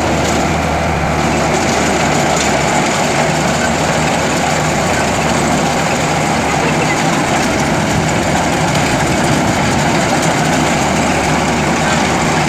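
An Osaka combine harvester running steadily as it threshes paddy fed by hand into its header: an engine hum with the clatter of the threshing mechanism, without pause.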